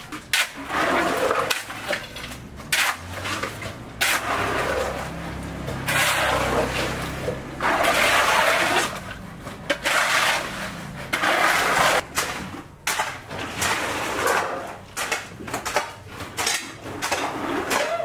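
Wet concrete being tipped onto a floor slab and spread with hoes: a run of splashing, sloshing pours a second or two long each, with a low hum underneath for a few seconds in the middle.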